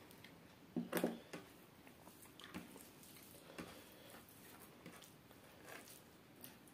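A bare hand mixing biryani rice with raita on a plate: soft, wet squishing with small clicks of fingers against the plate. About a second in there is a short, louder clunk as the raita bowl is set down on the table.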